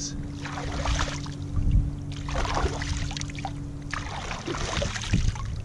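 Shallow river water splashing and dripping in three short bursts as a freshly caught sockeye salmon is handled at the surface, over a low wind rumble. A steady low hum runs underneath and stops about four seconds in.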